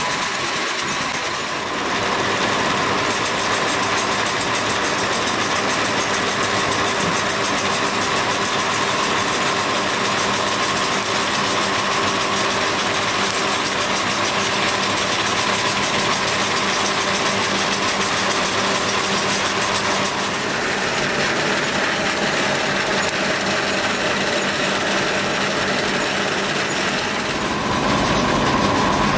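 Plastic rope-making machinery running steadily as it draws a plastic strip over its rollers: a continuous mechanical hum with a steady whine and a fast rattle. The mix of the noise changes about 2 seconds in, about 20 seconds in and again near the end.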